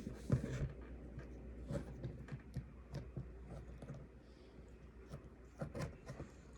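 Light clicks and taps of small plastic action-figure accessories being handled, with a louder knock just after the start and another near the end.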